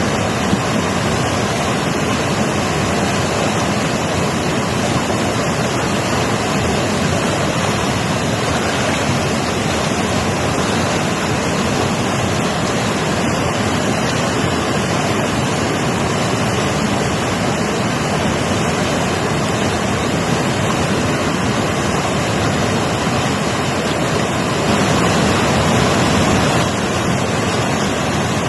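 Mountain river rushing over rocks: a loud, steady roar of flowing water, swelling slightly near the end.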